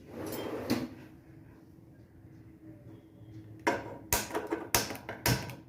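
Gas stove being turned on and cookware handled: a short hiss at the start, then a quick run of sharp clicks and clanks a little past the middle.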